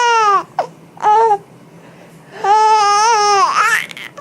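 A baby squealing and babbling in high, drawn-out vocal sounds: one trailing off just after the start, a short one about a second in, and a long one lasting over a second from about halfway through.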